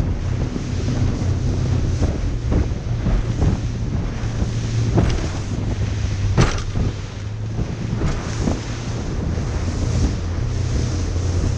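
A boat's engine running steadily under wind buffeting the microphone and the wash of the sea, with a few brief sharp sounds, the loudest about six and a half seconds in.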